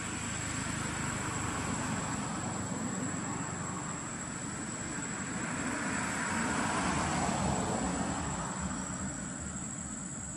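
Steady outdoor background rumble and hiss that swells a little past the middle and then eases off, like a distant vehicle passing, with a thin high-pitched whine held steady throughout.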